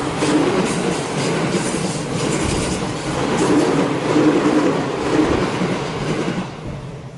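Train passing, its wheels clattering over the rails, the sound fading away near the end.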